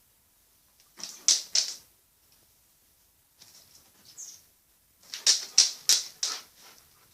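Young blackbird flapping its wings in short flurries: a couple of quick flaps about a second in, then a run of about five faster flaps between five and six and a half seconds.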